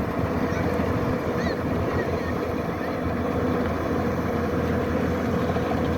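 Kubota DC-105X combine harvester's diesel engine and machinery running steadily while harvesting rice.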